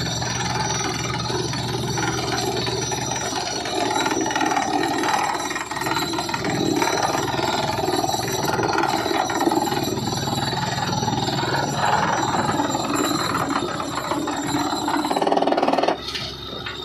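Truck-mounted borewell drilling rig boring with a down-the-hole air hammer: a dense, rapid hammering over the steadily running engine, with air blowing cuttings out of the hole. The noise drops off suddenly near the end.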